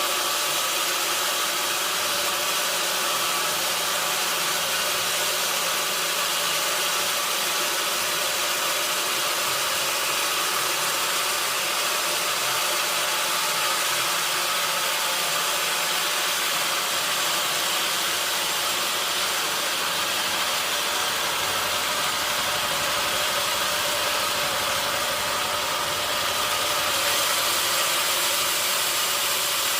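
Sawmill machinery running steadily: a constant loud mechanical noise with a faint, even hum inside it.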